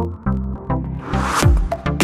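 Electronic dance music with a steady beat; a rising swish builds about a second in and leads into heavy kick-drum hits near the end.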